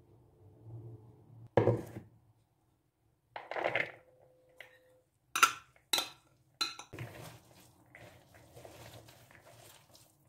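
Glass mixing bowl knocking and clinking as meatball mixture is tipped out of it into a plastic bowl: a knock, a scrape, then three sharp ringing clinks about five to seven seconds in. After that comes softer scraping and rustling of the mixture in the bowl.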